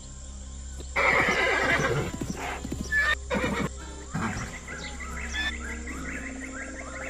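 A horse whinnying loudly, starting about a second in, with further shorter calls over background music.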